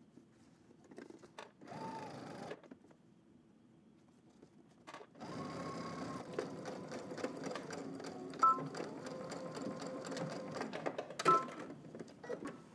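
Electric sewing machine stitching a zipper tape to a denim jeans fly facing. A short burst of stitching about two seconds in is the backstitch at the start of the seam. After a pause comes a steady run of about six seconds, with two short beeps during it, that stops near the end.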